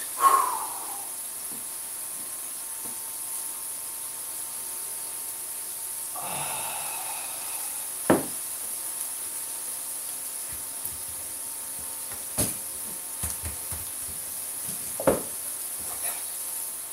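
Stuffed peppers sizzling faintly in a frying pan on an induction hob. A few sharp light knocks come about 8, 12 and 15 seconds in, and a brief rustle of a herb bunch comes about six seconds in.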